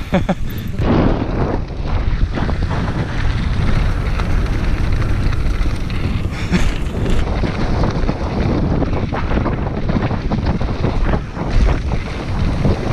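Wind buffeting the microphone of a camera on a downhill mountain bike at speed, with the tyres crunching over loose gravel and dirt and the bike rattling on the rough trail in many short knocks.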